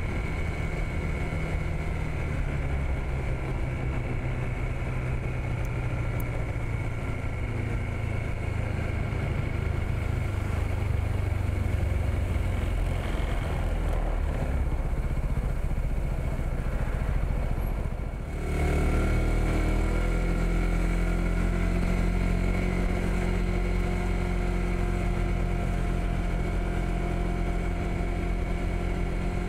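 Honda PCX160 scooter's single-cylinder four-stroke engine running steadily while riding. About two-thirds of the way through, the engine note briefly drops, then picks up again and rises a little in pitch.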